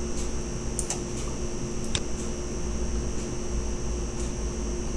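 Steady background hum with a thin high whine, with a few faint, scattered computer mouse clicks.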